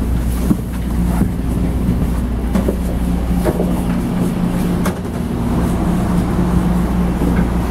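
Steady low hum inside a commuter train car, with scattered short knocks and footsteps of passengers walking down the aisle toward the doors.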